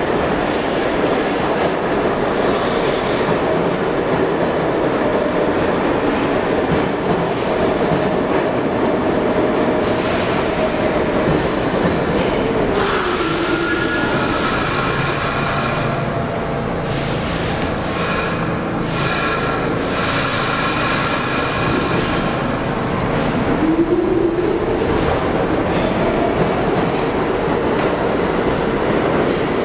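New York City subway train in an underground station, a loud steady rumble of wheels on rail. The motor whine falls in pitch as the train brakes, about a third of the way in. Near the end it rises again as the train pulls away.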